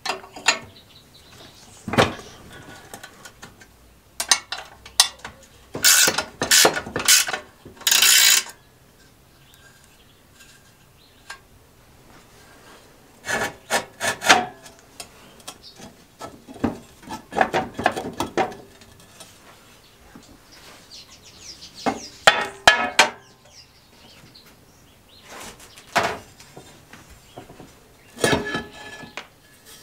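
An open-ended spanner works the nuts on the steel side plate of a Suffolk Punch reel mower, then the side casing scrapes and knocks as it is worked loose. The sound comes in separate bursts of scraping, clinks and knocks with quiet pauses between them.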